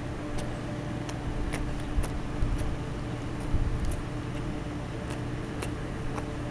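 Chow chow eating kibble mixed with egg and deli meat from a plastic bowl: irregular crunching clicks and a few soft chewing thumps, over a steady mechanical hum.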